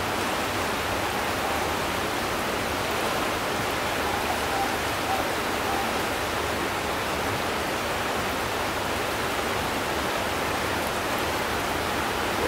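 Fast-flowing river water rushing steadily past the bank, a constant even hiss.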